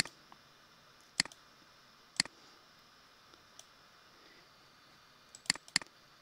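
Computer mouse button clicks: single clicks about one and two seconds in, then a quick double click near the end, over faint room hiss.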